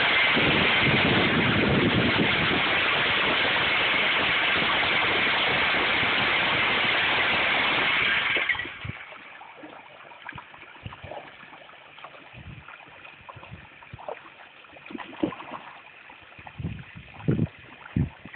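Automatic pond fish feeder running and broadcasting feed pellets over the water, a loud steady rush that cuts off after about eight and a half seconds. Then fish feed at the surface in a frenzy, with scattered sharp splashes.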